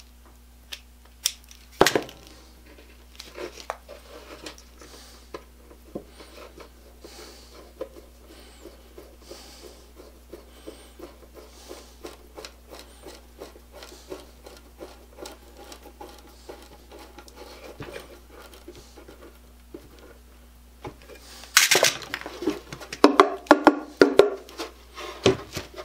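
Quick, light scraping strokes of a white block rubbed along the edges of a pallet-wood birdhouse box. About 21 seconds in, the box is lifted and handled, giving louder wooden knocks and rattles.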